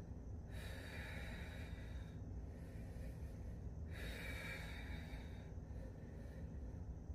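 A woman's slow, deep breathing as she holds a yoga side plank: two full breath cycles, each a longer, stronger breath followed by a softer one. A low, steady hum runs underneath.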